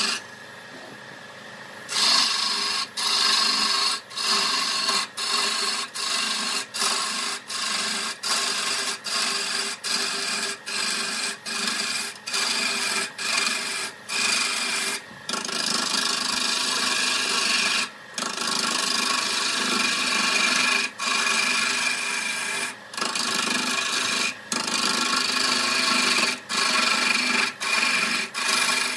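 Turning tool scraping and cutting a wooden workpiece spinning on a wood lathe: a steady rasping sound with a faint steady whine in it, broken by short dips about once a second. It is quieter for the first two seconds.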